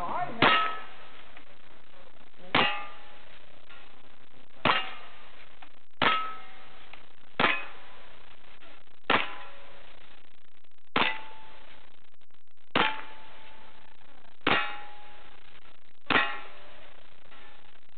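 Ten shots from a lever-action rifle at a slow, even pace, one about every one and a half to two seconds, each followed by the short ring of a struck steel target.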